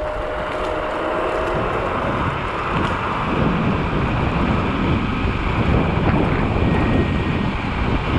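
Wind buffeting the microphone of an electric scooter ridden at speed, over road rumble from the tyres and motors. It grows a little louder through the run, with a faint steady whine in the first second or so.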